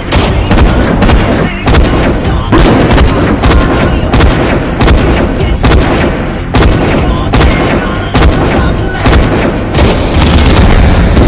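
Rapid film gunfire, shots and booms in quick succession, mixed over music.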